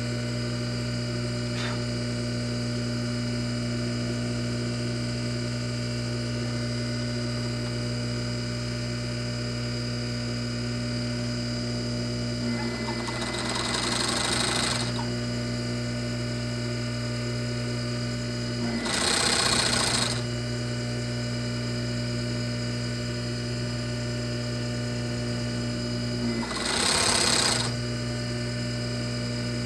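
Olleo Plushmaster 2914 fur sewing machine, with a steady electric hum from its running motor, broken by three short bursts of rapid stitching about one to two seconds each: one around halfway through, one about two-thirds through and one near the end.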